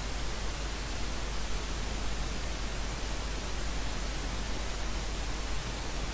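Steady hiss of static-like noise across the whole range, with no tones or events in it: the noise floor of the recording.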